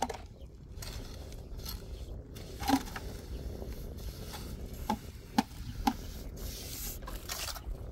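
Mason's trowel scraping and spreading cement mortar along the top of a concrete-block wall, with four or five sharp taps of the trowel among the scrapes.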